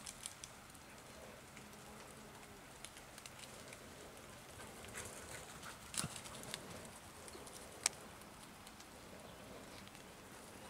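Quiet wet-woodland sound: faint scattered ticks and crackles, with two sharper clicks about six and eight seconds in.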